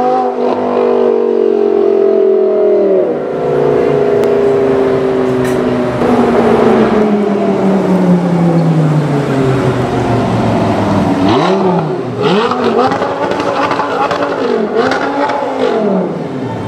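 Audi R8 V10 Plus's V10 engine through a Per4mance aftermarket exhaust, loud. Its pitch falls as the car pulls away for the first few seconds, then a long, slowly falling engine note, then a series of quick throttle blips and revs in the last few seconds.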